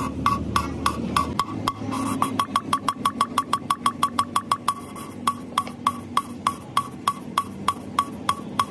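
A valve being hand-lapped into its seat in an aluminium cylinder head with a suction-cup lapping stick: a fast run of sharp ticks as the valve is twisted back and forth against the seat. The ticks come about four to six a second and speed up and slow down with the hand strokes.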